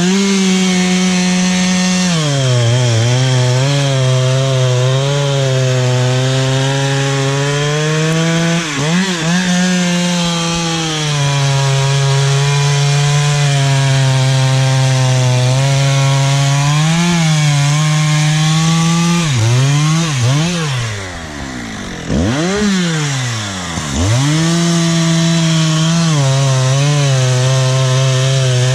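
Husqvarna 365 two-stroke chainsaw running at high revs while cutting through a big log, its pitch sagging and recovering as the chain bites into the wood. About two-thirds of the way through, the engine drops off and revs back up twice, then settles back into steady cutting.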